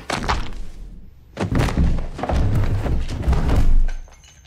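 Heavy thuds and scuffling of two people grappling, ending in bodies crashing down onto the floor; the loudest, heaviest thumps come in the second half and stop abruptly shortly before the end.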